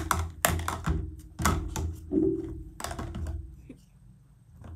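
Small plastic makeup containers clicking and clattering as they are handled and set into a makeup organizer, in irregular knocks that thin out near the end.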